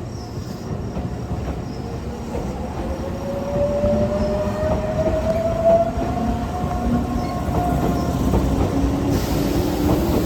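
Tobu 8000 series electric train pulling away from a station. Its traction motors whine, rising in pitch as it accelerates, and the rolling noise grows louder.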